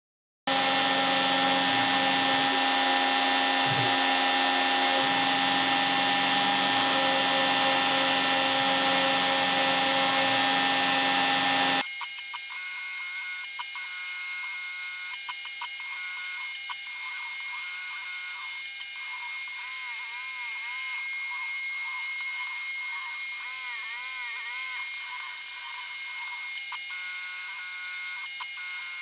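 X-Carve CNC router carving: the router motor runs with a steady high whine while the stepper motors whine in short rising and falling sweeps as the axes move. The sound starts suddenly, and about twelve seconds in it turns thinner, losing its low end.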